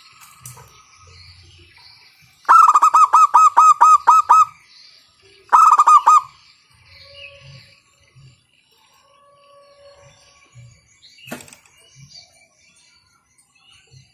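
Zebra dove (local perkutut) calling: a fast run of about ten loud, evenly spaced cooing notes, then a shorter burst of about four. Faint chirping from other small birds runs underneath, and there is a single sharp click near the end.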